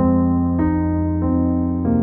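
Background music on a keyboard with a piano-like sound, entering suddenly with a loud chord, then new notes struck about every two-thirds of a second.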